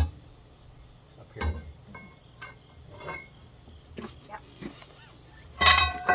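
Scattered metal knocks and clinks of steel tools and a bar against the track loader's track and undercarriage. Near the end comes a loud metallic clang that rings on for over a second. A steady high insect drone runs underneath.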